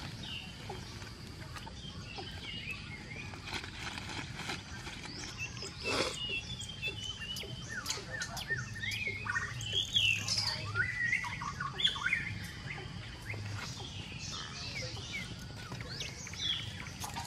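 Birds chirping with many short, quick calls over outdoor ambience, busiest in the middle stretch, with a few sharp clicks, the strongest about six seconds in.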